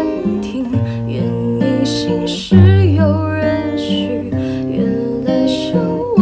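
A slow Chinese-language ballad: a singer's voice with vibrato over strummed acoustic guitar.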